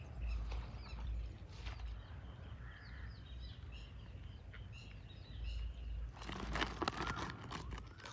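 Small birds chirping, many short high calls scattered throughout, over a low rumble, with rustling in the last couple of seconds.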